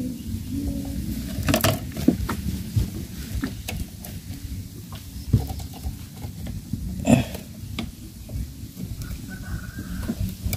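Collapsible net crab trap being handled in a small boat: a handful of sharp knocks and rattles of its wire frame against the hull, spread out over a steady low rumble. A brief high animal call sounds near the end.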